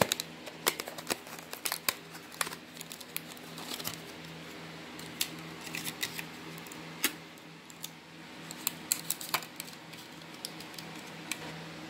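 The plastic blister and cardboard backing of a microSD card's retail pack crackling and clicking as it is worked open by hand, in scattered sharp clicks, over a steady low hum.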